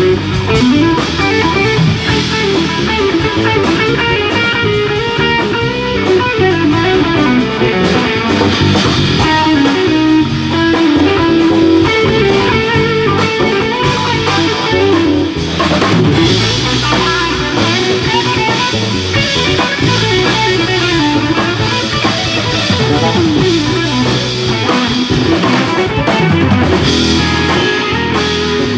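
Live jazz band playing: electric guitar lines over bass guitar and drum kit.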